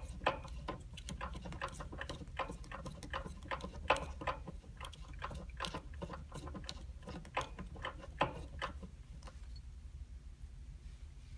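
Bicycle pedal being threaded by hand into the crank arm: a run of small, irregular metallic clicks and ticks, thinning out near the end.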